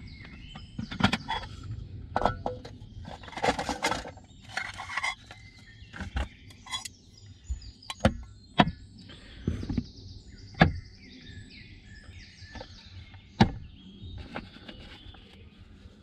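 Irregular knocks, clicks and rustling of things being handled and set down, with a stretch of louder rustling about three to five seconds in. Birds are singing faintly behind it.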